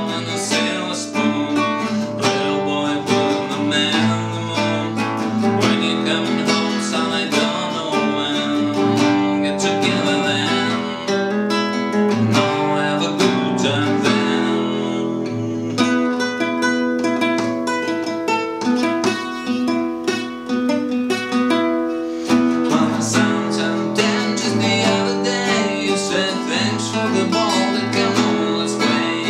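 A man singing while strumming an acoustic guitar, a steady strummed chord accompaniment under his voice.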